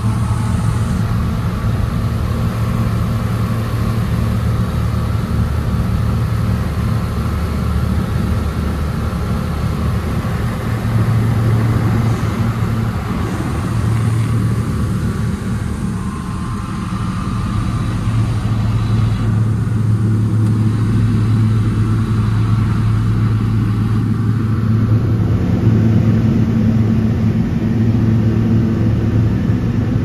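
Single-engine light aircraft's engine and propeller running steadily, heard from inside the cockpit as a continuous low drone.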